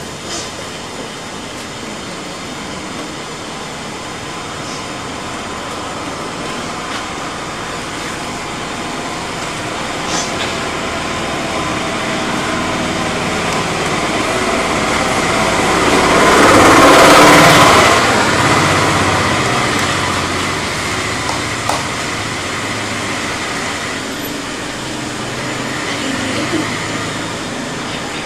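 Played-in stage sound effect: a rushing noise that swells slowly to a loud peak a little past halfway and then fades, over low held droning tones.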